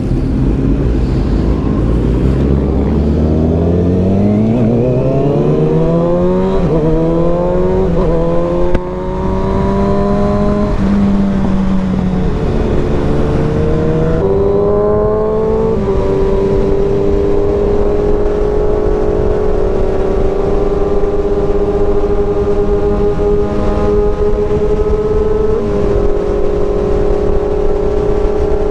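Kawasaki ZX-6R inline-four sport bike engine pulling away and accelerating, rising in pitch through the gears with about three quick upshifts in the first fifteen seconds. It then runs steadily at cruising speed.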